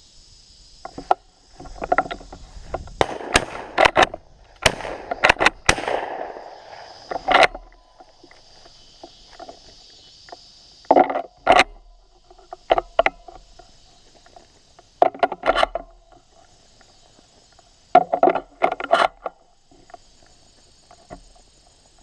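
Shotgun shots at passing doves: a rapid string of sharp reports a few seconds in, then more shots in pairs and small groups later. Field insects keep up a steady high buzz underneath.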